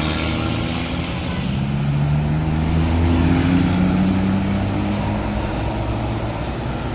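Tour bus's diesel engine running loud as it pulls past, its note rising a little in the middle and then holding.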